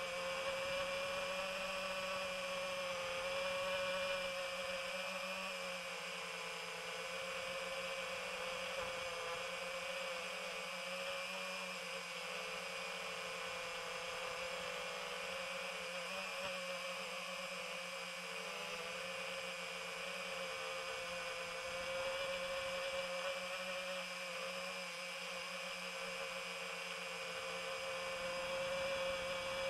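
Quadcopter drone's motors and propellers whirring steadily, a high-pitched whine that wavers slightly in pitch as the throttle changes.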